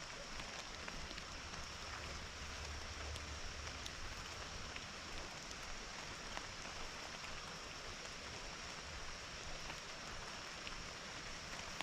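Steady rain falling, with scattered drop ticks, over the running water of a small creek.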